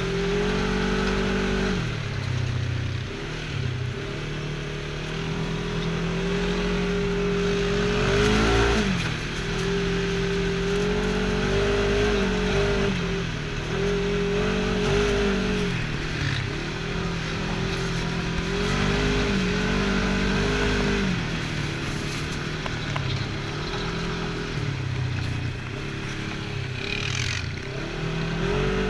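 Side-by-side UTV engine running under way, its pitch rising and falling again and again as the throttle is worked, over a steady hiss.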